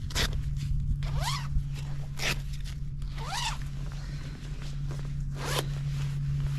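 Fishing reel whirring in short zipper-like sweeps, about five of them, some rising in pitch, as line is worked in, over a steady low hum.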